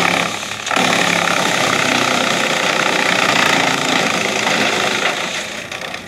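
Tractor-driven wood chipper running under load, grinding Prosopis juliflora (mesquite) branches into chips over the tractor's engine. The noise dips briefly just under a second in, then stays loud and steady.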